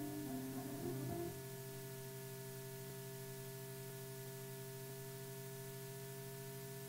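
Film soundtrack music: a short melodic phrase that ends about a second in, then a steady held chord.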